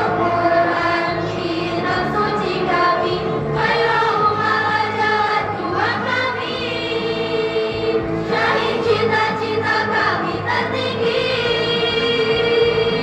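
A choir singing, with long held notes and short glides between them.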